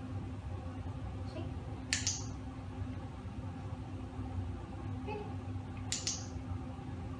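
Two sharp clicks about four seconds apart, each a quick double click, over a low steady hum.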